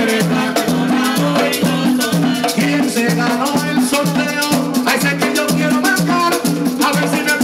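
Live plena music: hand-held panderos (plena frame drums) beating a steady, driving rhythm, with a rattling scraped percussion part and a repeating bass line underneath.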